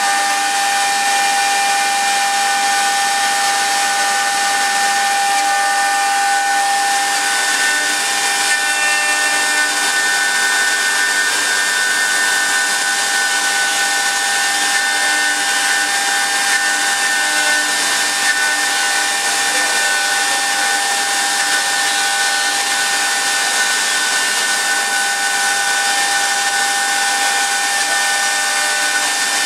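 CNC wood turning lathe running, its 3.5 kW air-cooled spindle giving a steady high whine of several held tones over a continuous hiss.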